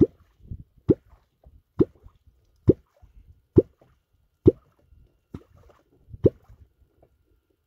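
A catfish clonk (kwok) being struck into the river surface in a steady rhythm, about one short, sharp stroke a second, some eight strokes in a row. The sound is made to draw wels catfish up from the bottom.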